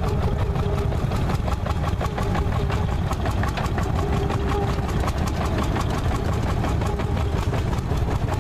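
Landini Bufalo vintage tractor's single-cylinder hot-bulb (testa calda) two-stroke engine running steadily with an even, rapid beat of firing strokes while the tractor drives itself in circles with no one at the wheel.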